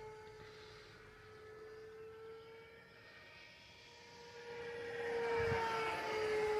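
E-flite F-15 Eagle's 64mm electric ducted fan whining steadily in flight. It fades as the jet flies off, then grows loud again about five seconds in as it passes close, its pitch dipping slightly as it goes by.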